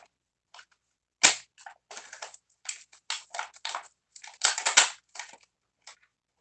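Crinkly plastic egg trays and wrapping crackling and snapping as balut eggs are pulled out of a cardboard box. There is a sharp snap about a second in, then a run of short crackles that is loudest near the end.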